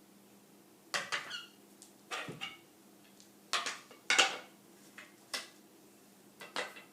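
Wooden parts of an Ashford Knitter's Loom Stand knocking and clattering as it is taken apart, with short squeaks, in irregular separate knocks about once a second.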